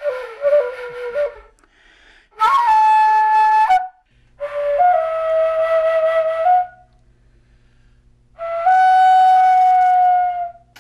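Korean tungso, a bamboo vertical flute, blown through the nose, playing four long held notes with short breaks between them, the pitch stepping and sliding a little within each note.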